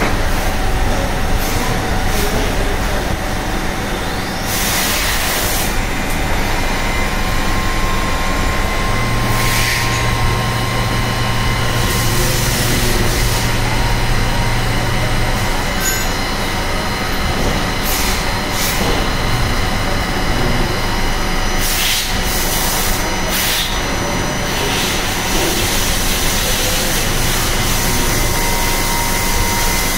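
Five-axis vertical machining center running and cutting a workpiece: a steady spindle whine over dense machining noise, with a few brief louder bursts now and then.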